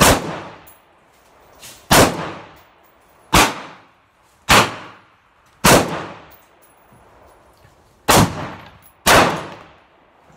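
AR-15 rifle fired semi-automatically: seven sharp shots, spaced one to two and a half seconds apart, each followed by a ringing echo under the range's roof.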